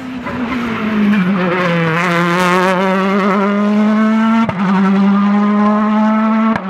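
Hyundai i20 WRC rally car's 1.6-litre turbocharged four-cylinder engine accelerating hard away. Its note dips early on, then climbs steadily, with two sharp cracks where it shifts up, one past the middle and one near the end.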